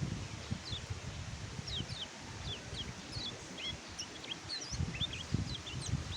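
Kecial kuning (white-eye, pleci) singing a rapid run of short, high chirping notes that slide up and down. Low rumbling background noise runs underneath.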